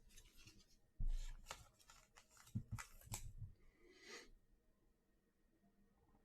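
Trading cards and packaging handled at close range: a soft thump, then a few short scrapes and taps of cardboard being slid and set down, and a brief rustle before it goes quiet.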